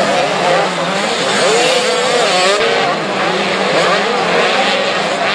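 Several motocross bikes racing on a dirt track, their engines revving up and down with overlapping pitches that rise and fall as the throttles open and close.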